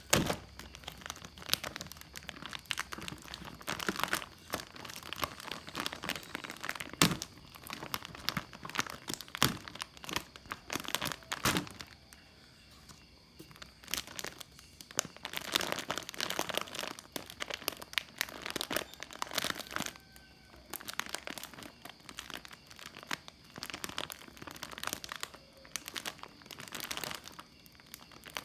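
Clear plastic packaging bag around an airsoft rifle crinkling and rustling as it is handled and pulled open, on and off, with a few sharp snaps.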